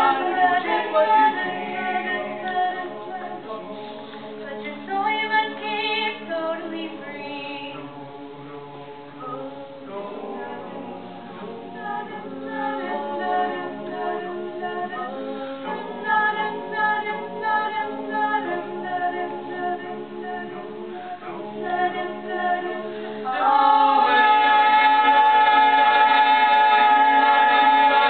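Mixed-voice a cappella group of men and women singing in harmony, with no instruments. About 23 seconds in, the voices swell into a loud, steady held chord.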